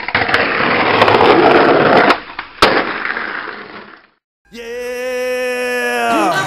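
Skateboard wheels rolling over rough asphalt, then a sharp clack of the board about two seconds in and another half a second later as the rolling fades out. After a brief silence, a held electronic tone with several pitches slides sharply down near the end, like a tape slowing to a stop.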